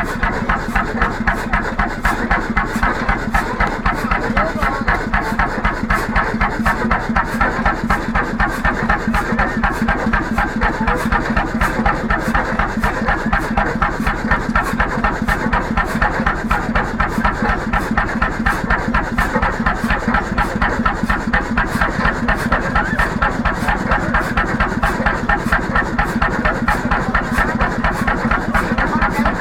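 1943 Bjørnevik 20 hp single-cylinder semi-diesel (hot-bulb) engine running steadily at idle, with an even, unchanging beat.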